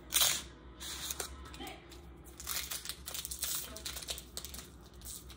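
Foil wrapper of a Pokémon trading-card booster pack crinkling and tearing as it is opened by hand, with a sharp rustle right at the start and a run of crackles in the middle.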